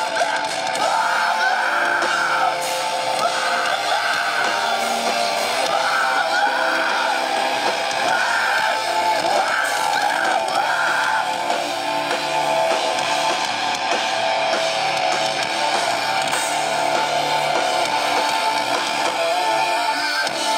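Metalcore band playing live on stage: distorted electric guitars, bass and drums. A guitar riff repeats through the first half before the part changes.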